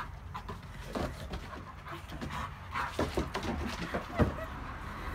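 Shar-Pei x Husky puppy panting, with a few scattered knocks and a sharper knock a little past four seconds in.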